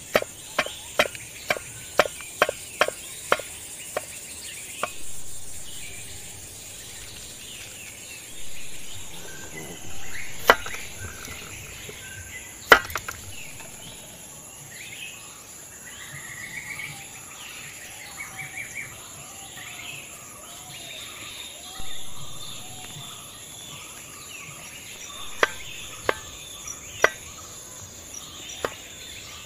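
A knife chopping on a wooden block: a quick run of about a dozen chops through chillies in the first few seconds, then scattered single chops and scraping strokes of a green plantain being peeled and cut, over a steady high insect drone with bird chirps.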